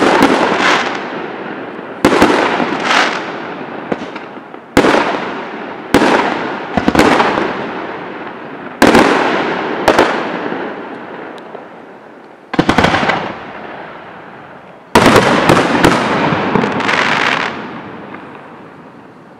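Aerial firework shells bursting: about eight sharp bangs spaced a second or a few seconds apart, each trailing off in a rumbling echo with crackling. The bursts stop a few seconds before the end and the sound fades away.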